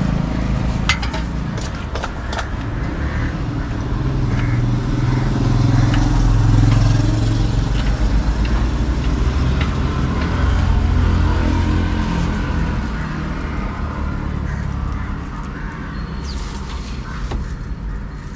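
Road traffic passing close by, mostly car engine and tyre noise. It swells twice, about a third of the way in and again just past halfway, then fades. A few light clicks near the start.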